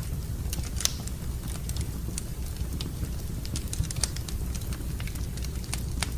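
Wood fire burning in a fireplace, crackling with irregular sharp pops over a steady low rumble.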